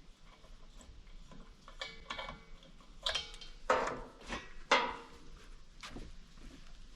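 Scattered light knocks and clinks, a cluster of several sharp ones about three to five seconds in.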